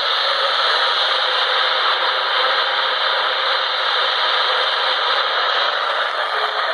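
Steady, loud static hiss from a NOAA Weather Radio receiver, the broadcast's voice replaced by noise while the transmitter misbehaves.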